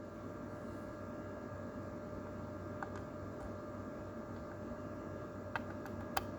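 Small high-speed amplifier cooling fan powered on, giving a low steady hum with a few light ticks. The fan has dropped off its bearing and its blades catch on the circuit board, so it only struggles to spin.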